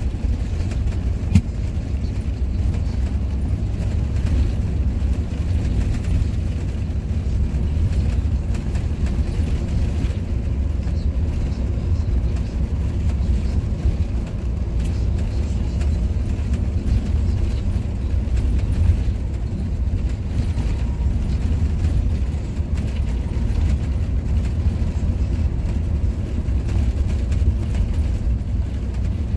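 Inside a moving bus at speed: a steady low rumble of engine and road noise through the cabin, with a single sharp knock about a second and a half in.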